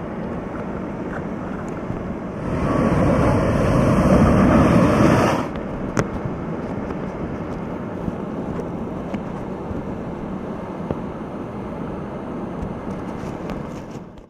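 Cyclone wind buffeting the microphone over rough sea. A louder stretch of rushing noise starts about two and a half seconds in and cuts off sharply about three seconds later.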